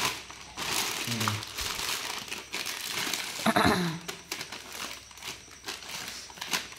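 Thin plastic carry bag crinkling and rustling in irregular bursts as it is handled and wrapped around a jar.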